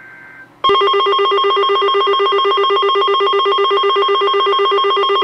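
Weather alert radios' alarms going off during a NOAA Weather Radio weekly tone alarm test: a loud, rapidly pulsing electronic beep that starts abruptly about half a second in, after a faint steady tone.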